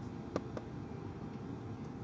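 Steady low hum of a parked airliner's cabin, with two short sharp clicks close together about a third of a second and half a second in.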